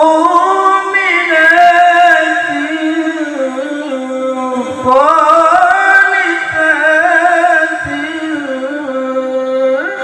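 A man reciting the Quran in melodic tilawah style through a microphone, holding long notes with quavering ornamental runs. Two long phrases, with a short breath about halfway through.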